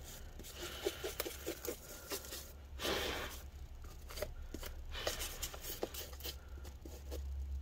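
Quiet rustling and scraping with scattered small clicks and knocks as the aluminium top case of a disassembled laptop is wiped dry and handled, with a longer rustle about three seconds in.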